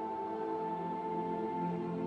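Ambient background music: soft sustained notes, with a high note held until near the end over lower droning tones.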